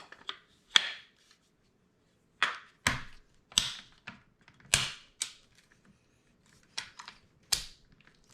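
About ten sharp clicks and clacks of metal rifle parts at irregular intervals, as a longer handguard is fitted onto a Sig MCX Virtus pistol upper and the gun is put back together.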